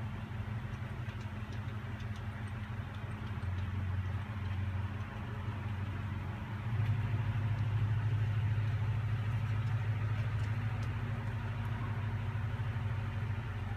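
Steady low machine hum, which gets louder about halfway through and holds there.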